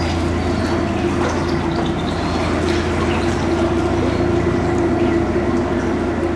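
Narrowboat's inboard engine running steadily at a slow cruising speed, a constant low hum.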